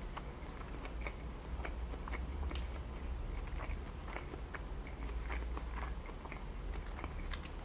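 Close-miked chewing of a sushi roll: many soft, wet mouth clicks and smacks in an irregular run.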